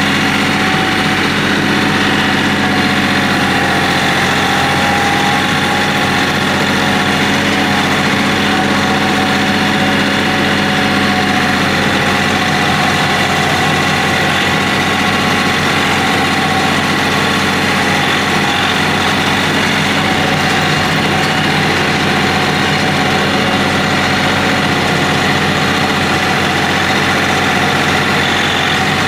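KIOTI CK3510 compact tractor's three-cylinder diesel engine running at a steady, unchanging speed while the tractor is driven.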